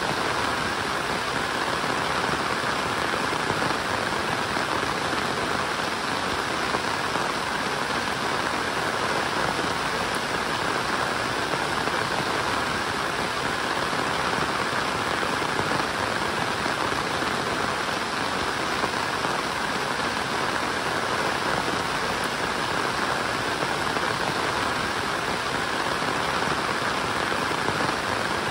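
Steady rainfall, an even hiss that does not let up.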